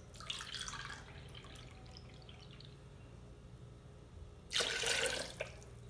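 Milk pouring from a carton into a glass measuring cup, then a louder rush of liquid a little over four and a half seconds in as a cupful is tipped into a plastic blender jug.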